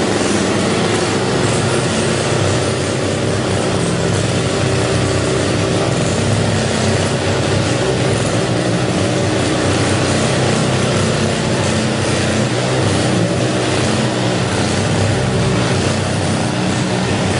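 Small engine of a Nichino 308B cement-mixing cultivator running steadily at a constant speed.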